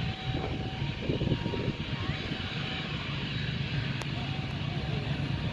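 Jet airliner engines running with a steady low hum under a continuous rush. One sharp click about four seconds in.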